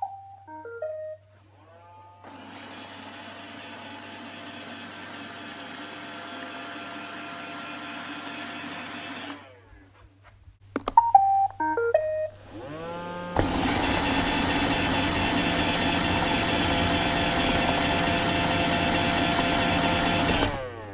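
iRobot Roomba robot vacuum playing a short series of beeps, then its motors spinning up with a rising whine and running steadily while it tows a load. It stops about nine seconds in, beeps again near eleven seconds, and spins up once more to run louder for the rest of the stretch.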